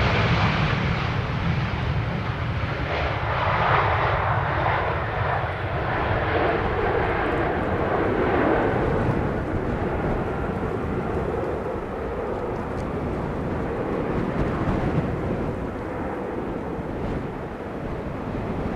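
Jet engines of an easyJet Airbus A319 airliner rolling along the runway: a steady rumbling roar that slowly eases off.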